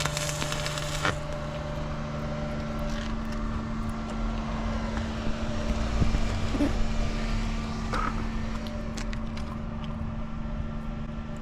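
Portable welding machine humming steadily over a low rumble, with a few faint ticks.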